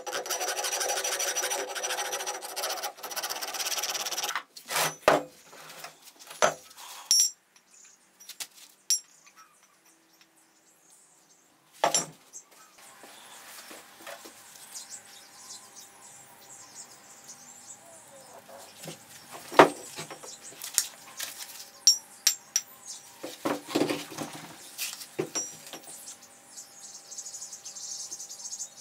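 Hand file rasping in fast strokes across the cut end of a steel chain-link bar for about four seconds, then stopping abruptly. Scattered metallic clinks and knocks follow as the steel pieces and tools are set down on the workbench, and near the end there is a light, high scratching of a pointed marking tool on a steel end face.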